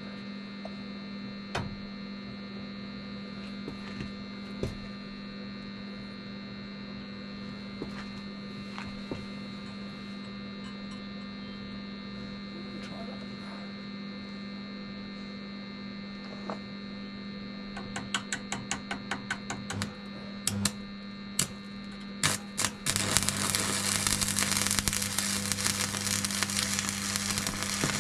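Arc (stick) welder: a steady electrical hum with scattered clicks, then a quick run of ticks, and for the last few seconds the dense crackle of the arc burning as a weld is laid.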